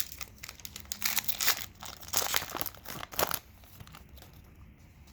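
A foil hockey-card pack wrapper crinkling and tearing as it is opened, a quick run of crackly rustles that is busiest in the middle, then fainter handling near the end.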